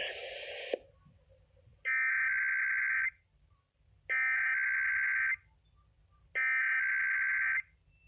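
NOAA Weather Radio SAME alert header from a Reecom R-1650D weather alert radio's speaker: three identical buzzy digital data bursts, each a little over a second long and about a second apart. The bursts encode the start of a Required Weekly Test. The tail of the synthesized forecast voice ends just before them.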